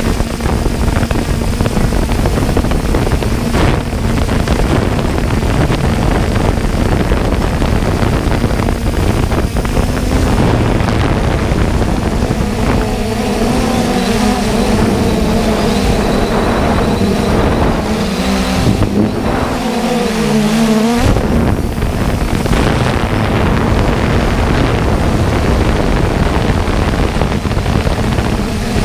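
Small drone's electric motors and propellers humming, heard from the aircraft's own camera, the pitch wavering and shifting as it manoeuvres, under a loud rush of wind on the microphone.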